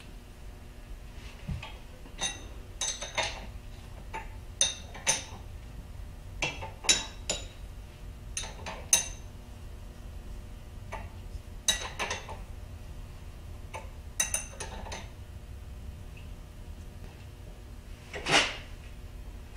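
Steel wrench clinking against the handwheel and leadscrew nut at the end of a Bridgeport milling machine's table while that end is taken apart. Scattered short metallic clinks ring briefly, often two or three close together, with one louder, longer clank near the end.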